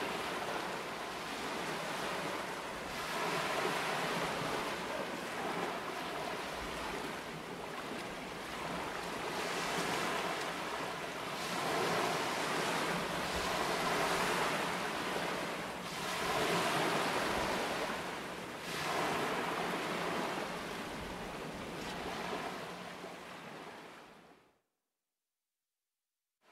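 Sea water rushing and splashing against the fishing boat's hull as the net comes up, rising and falling every couple of seconds, with wind on the microphone and a low steady hum from the boat's engine. It fades out to silence about 24 seconds in.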